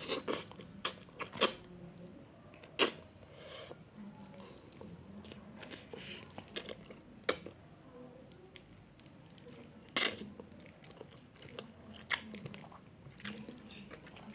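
Close-up chewing and mouth sounds of a person eating Indomie goreng instant fried noodles, with sharp clicks every second or two.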